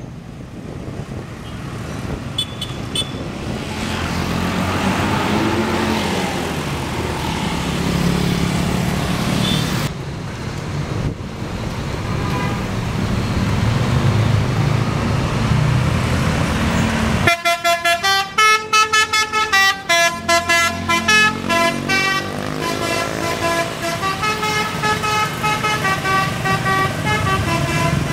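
A bus engine and road traffic running, then about 17 seconds in a bus's telolet horn starts: a set of pitched air horns playing a quick tune of stepping notes that keeps going.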